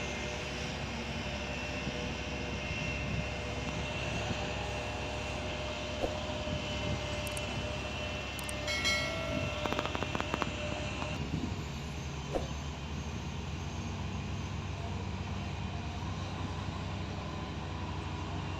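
Diesel engines of heavy earthmoving machinery running steadily, with a short cluster of clanks and knocks about nine to eleven seconds in.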